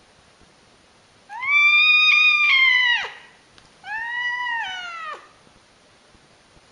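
Angry domestic cat yowling twice: two long drawn-out calls, the first louder, each dropping in pitch as it ends.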